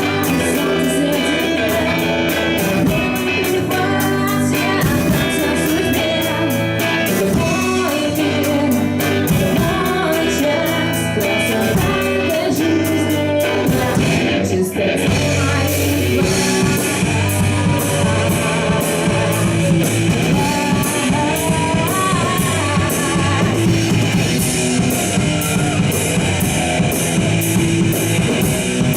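Rock band playing live: electric guitar and drum kit, with singing. About halfway through there is a brief break, after which the drums carry a steady beat with regular cymbal hits.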